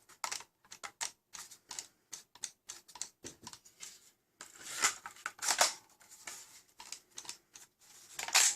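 Quick, irregular plastic clicks and taps from a foam-dart blaster being handled while its front muzzle screw is fitted, with a few louder sliding rasps about halfway through and near the end.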